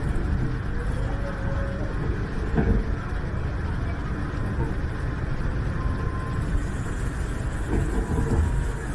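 Bombardier Innovia Monorail 300 train running between stations, a steady rumble of its rubber tyres on the concrete guideway and its drive, heard from inside the car, with a couple of brief knocks.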